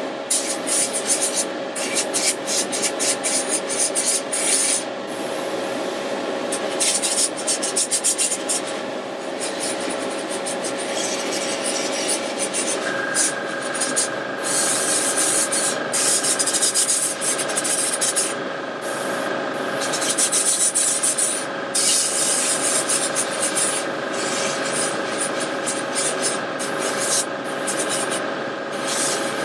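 Airbrush spraying metallic acrylic paint in repeated on-off bursts of hiss, over a steady hum. The owner finds the airbrush is not spraying at its best and needs a clean.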